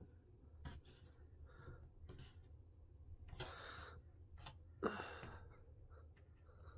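Mostly near silence over a low steady hum, with a few faint knocks and clicks from a hand handling wooden battens glued to a van's ceiling, the sharpest about five seconds in.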